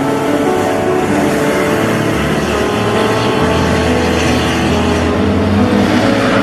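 Street traffic: motorcycles and cars passing close by with their engines running, and one vehicle sweeping past near the end.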